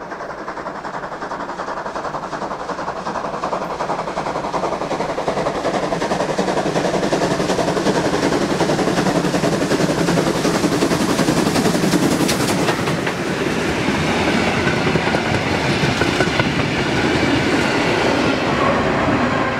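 Prussian P8 (class 38) steam locomotive working hard up a grade, its exhaust beats growing steadily louder as it approaches. Then its train of carriages passes close by, wheels clattering on the rails.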